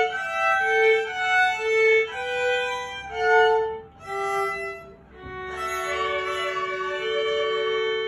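Violin duet by an adult's full-size violin and a child's smaller violin: a run of separate bowed notes, a brief break about five seconds in, then both players hold a long final chord of two notes together.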